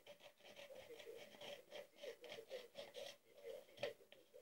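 Small hand scissors cutting a sheet of thin paper: faint snipping and rustling, with one sharper snip near the end.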